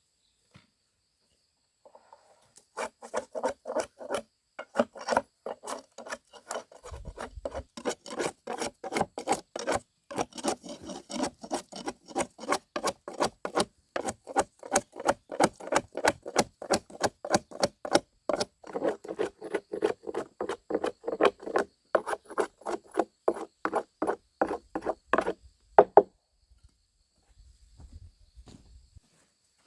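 A hand tool working wood in rhythmic rasping strokes, a few a second, such as a saw or blade rubbing through wood. The strokes start about three seconds in and stop with a sharper final stroke about 26 seconds in.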